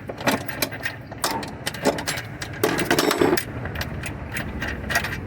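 Irregular metallic clicks and knocks of a wrench working the 13 mm bolts on a washing machine's motor, with a denser rattle about three seconds in, over a steady low hum.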